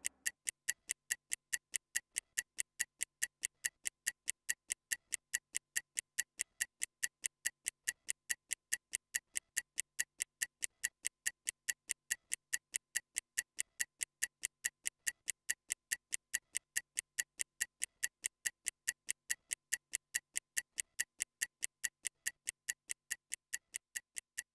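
Stopwatch ticking steadily, about four sharp ticks a second, marking a 30-second rest interval between exercises.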